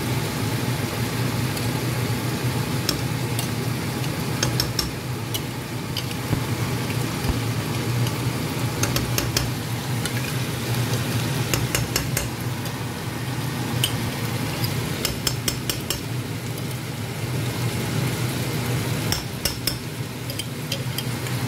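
Pork pieces frying in a nonstick pan with a steady sizzle, while a slotted spatula scrapes and taps against the pan in scattered clusters of clicks. A steady low hum runs underneath.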